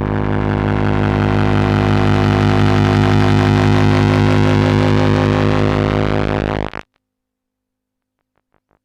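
Low, sustained musical drone with many overtones, cutting off abruptly about seven seconds in. After a short silence, faint pulsing notes begin near the end. No glass breaking is heard.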